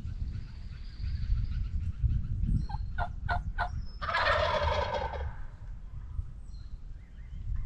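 Wild turkey gobbler gobbling once, a rattling gobble about a second long, about four seconds in. A few short sharp notes come just before it.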